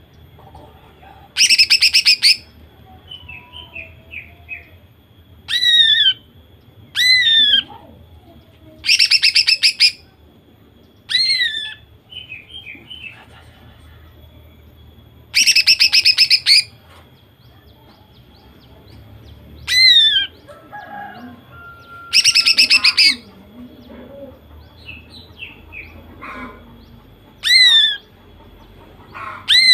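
Female cucak ijo (green leafbird) singing loudly. Short whistles falling in pitch alternate with rapid rattling trills about a second long, with soft twitters in between.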